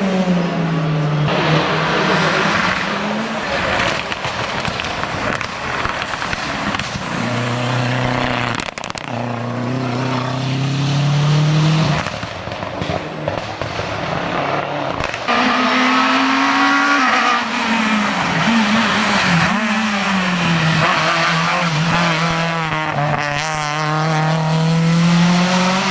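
Historic rally cars at speed on a stage, engines revving hard, pitch climbing and dropping repeatedly as they go through the gears and pass by.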